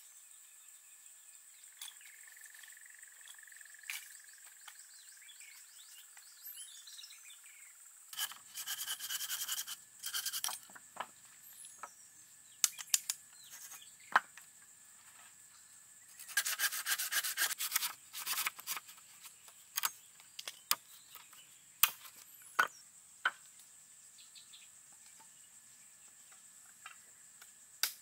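Rapid scraping or rubbing in two spells of about two seconds each, with scattered sharp knocks in between, over a steady high insect drone.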